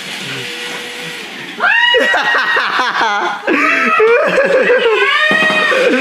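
The small electric motor of a remote-control centipede toy whirs steadily. About a second and a half in, loud high-pitched shrieks and laughter take over, the reaction to the toy being sent to scare someone.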